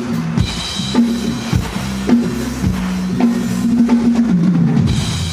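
Live band playing during a sound check: a drum kit keeps a steady beat, about two hits a second, under a bass line.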